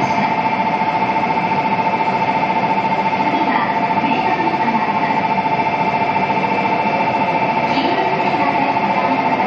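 Electronic platform departure bell ringing with a steady, rapid trill on a shinkansen platform, over faint background voices.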